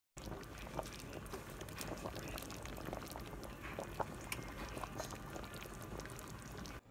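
Meat broth bubbling at a boil in a stainless steel pot, a steady crackle of many small pops.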